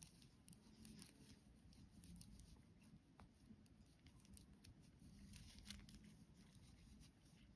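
Near silence with faint, scattered clicks and rustles of circular knitting needles and yarn as stitches are worked.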